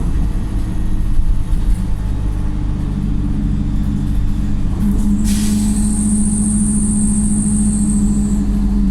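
Wright StreetLite single-deck bus heard from on board, its diesel engine running steadily under way. About five seconds in comes a short sharp hiss of released air, the StreetLite's typical air-system "sneeze", followed by a steady high whine.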